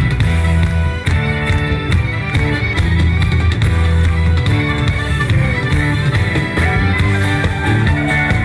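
A live band plays an instrumental passage of a folk-rock song, with fiddle and guitar over a steady beat.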